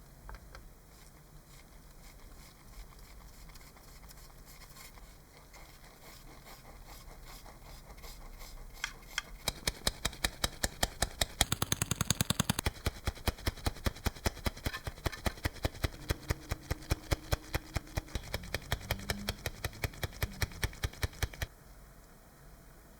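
Rapid, evenly spaced knocks, about four a second, starting about nine seconds in and stopping suddenly near the end.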